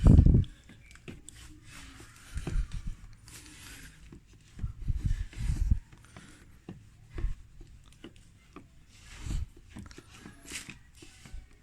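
Irregular rubbing and swishing of a cloth wiping a car headlight lens, with several low thumps of handling; the loudest thump comes right at the start.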